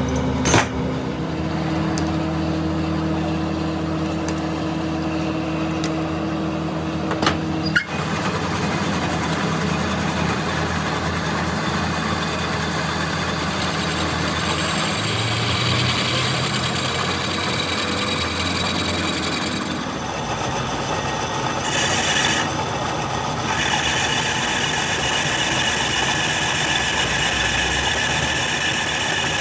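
Workshop machinery running steadily, with a few sharp clicks in the first eight seconds and shifts in its pitch and texture partway through.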